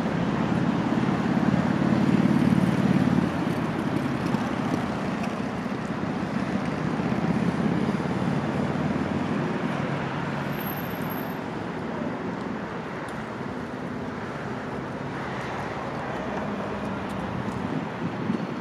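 Road traffic in a city: cars passing with a steady rumble. The loudest pass swells and fades about two seconds in, and a smaller one comes about seven seconds in.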